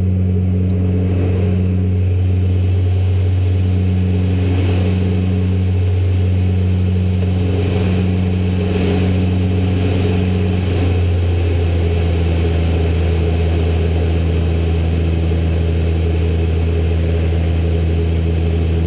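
Cockpit noise of a Saab 340's twin General Electric CT7 turboprops and propellers: a loud, steady, deep drone. A higher hum above it wavers in and out, then settles to a steady tone about twelve seconds in.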